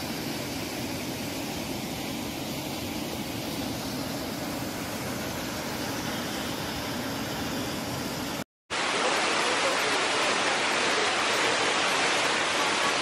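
Waterfall: a steady rush of water pouring into a pool. About eight and a half seconds in it breaks off for a moment, and it comes back louder.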